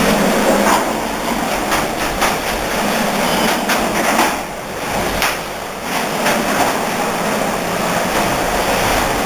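Garage door running on its opener: a steady loud rumble with scattered rattles and knocks, starting suddenly just before.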